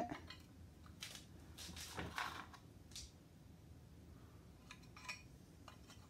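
Faint metallic clinks and scrapes of a steel electrical box being handled while a part from the old box, likely its BX cable clamp, is fitted into it. A few scattered short clicks, the loudest about two seconds in.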